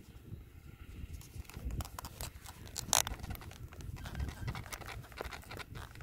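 Gloved hands fitting the plastic nose cover onto a Parrot Disco drone's foam fuselage: a run of small clicks and scrapes of plastic on foam, with one sharp click about three seconds in, over a low rumble.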